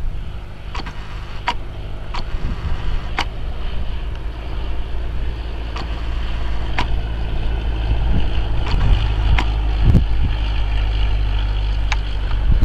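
Cessna 172S's four-cylinder piston engine and propeller droning at approach power as the plane passes low on its landing approach, slowly getting louder. Wind rumble on the microphone and a few scattered sharp clicks.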